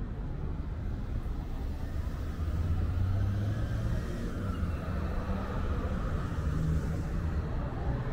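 City street traffic: a motor vehicle's engine running with a low, steady hum that swells about a third of the way in and holds for several seconds, over the general rumble of passing cars.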